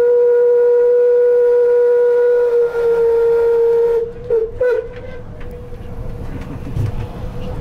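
Steam whistle of the 1906 paddle steamer Schiller, blown from the wheelhouse by a pull cord: one long steady blast that cuts off about four seconds in, followed by two short toots. A low rumble follows.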